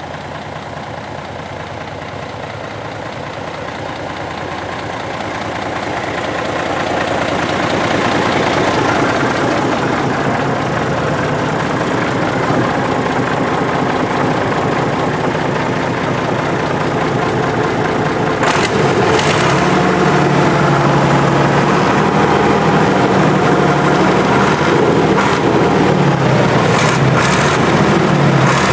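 Deutz D 10006 A tractor's air-cooled six-cylinder diesel engine running, growing louder over the first several seconds. In the last third the engine note rises and falls as it is revved, with a few sharp clicks.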